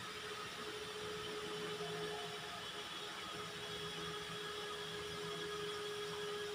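Kitchen extraction hood fan running steadily: an even whir with a constant hum.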